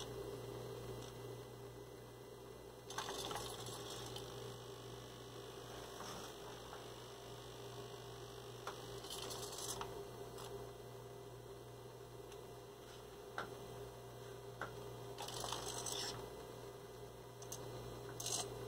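Robot monkey head's servo motors whirring in a few short bursts as the head and eyes turn to track a person, over a faint steady electrical hum.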